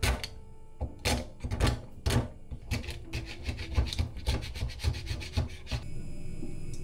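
Paper towel rubbed hard against a hard object by gloved hands, in short scrubbing strokes. They come a few at a time at first, then quicker, about three a second, and stop near the end.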